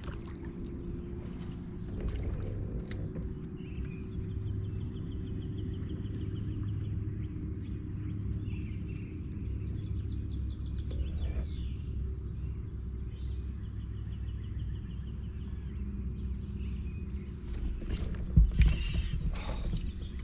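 A fishing kayak's electric motor drive running with a low steady hum while the boat moves along, with faint rapid ticking now and then and a knock near the end.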